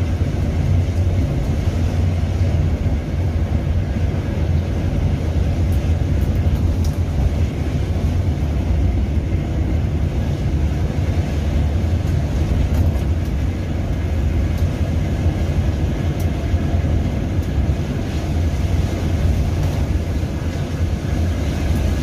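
Steady low drone of a coach bus's engine and tyres heard from inside its cabin while it cruises along a highway, with an even road roar over a deep hum.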